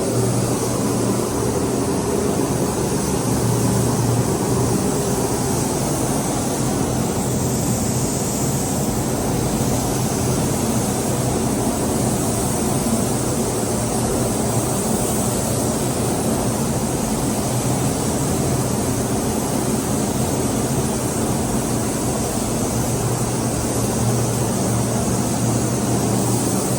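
Steady machine noise: a continuous low hum under an even rushing hiss, unchanging throughout.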